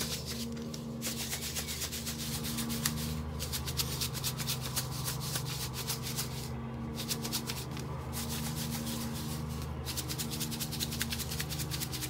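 Homemade powdered dishwasher detergent (borax, washing soda, citric acid and salt) shaken hard in a plastic jar with a screw lid. It makes a continuous gritty rattle with a few brief pauses.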